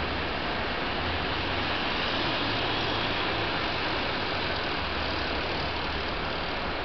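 MARTA transit bus engine running with a low hum as the bus drives off, over a steady hiss.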